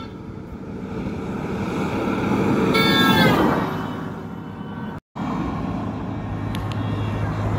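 A vehicle speeds close past at high speed, its sound swelling and fading, with its horn sounding as it goes by, the horn's pitch dropping as it passes. The sound cuts out briefly about two-thirds of the way in, and then road and engine noise of another vehicle continues.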